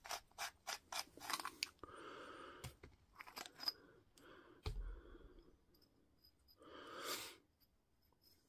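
Faint clicks, knocks and short scrapes from the parts of a Makita TD157 impact driver being handled as its front housing and anvil are taken apart: a quick run of small clicks at first, more clicks a few seconds in, a single knock about halfway, and two brief scraping stretches.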